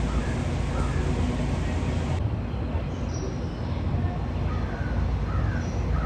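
Scattered short, faint bird calls over a steady low rumble.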